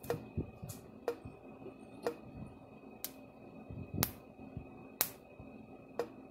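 Old Farm-Test solid-state electric fence charger pulsing, a sharp click about once a second. From about four seconds in, the pulses jump as sparks from the fence terminal to a screwdriver held against it, giving the loudest cracks.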